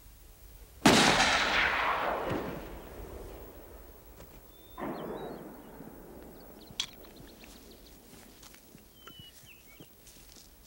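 Two rifle shots from a caribou hunt, the first very loud about a second in and the second quieter about four seconds later, each echoing and fading out over a couple of seconds. A single sharp click follows shortly after.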